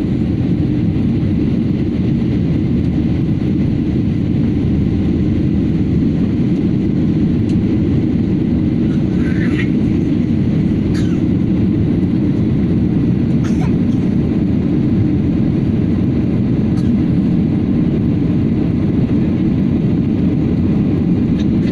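Steady, loud low rumble of an airplane, unchanging throughout, with a few faint brief sounds over it around the middle.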